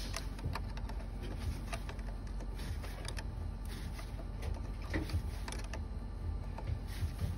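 A 10 mm wrench working the nut on a car battery's negative terminal, with irregular light metallic clicks and ticks as the wrench is refitted and turned a bit at a time.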